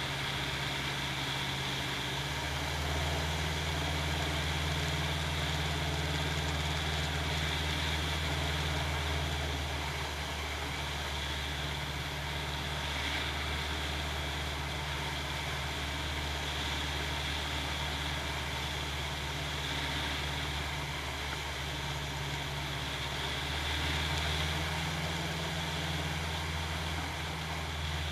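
Challenger II ultralight's engine and propeller droning steadily in cruise flight, heard aboard with a steady wind rush. The low hum grows a little stronger about three seconds in and again near the end.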